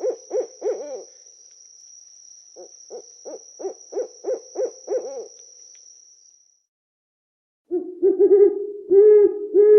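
An owl calling in two quick runs of about eight or nine short hoots, roughly three a second, over a steady high thin tone. After a short break, a louder, lower call begins near the end.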